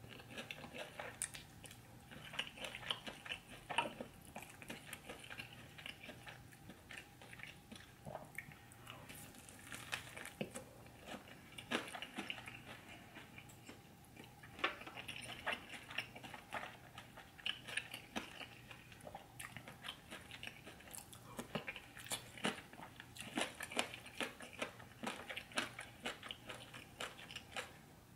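A person eating close to the microphone: chewing and biting, with many short, irregular mouth and bite sounds.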